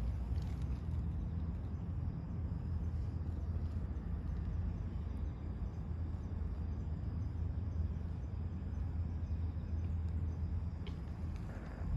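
Steady low rumble of outdoor background noise, with faint insects trilling high above it and a couple of small ticks near the end.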